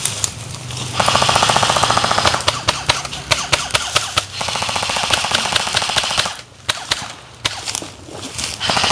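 Airsoft rifle firing rapid full-auto bursts: one of about a second and a half, then one of about two seconds, and another starting near the end. Scattered single sharp cracks fall between the bursts.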